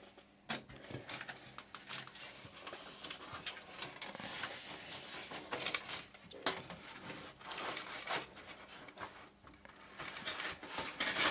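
Cables and small plastic parts handled inside a PC case: light rustling with scattered small clicks and knocks.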